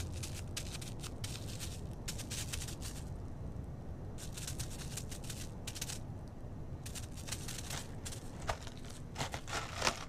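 Sable's feet crunching and rustling over crusted snow and dry leaves, in repeated bursts of crackling, loudest near the end, over a steady low hum.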